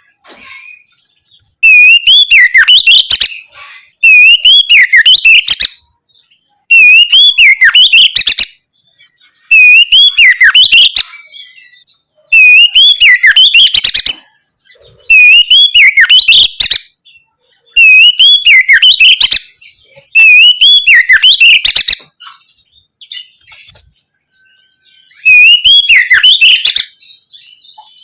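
Oriental magpie-robin (kacer) singing loudly, repeating the same rich whistled phrase nine times. Each phrase opens on a rising-and-falling whistle and runs into quick descending notes. Short pauses separate the phrases, with a longer one shortly before the last.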